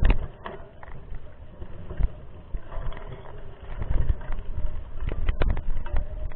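Mountain bike ridden over a rough trail: wind rumble on the microphone with a run of knocks and rattles, busiest about five seconds in.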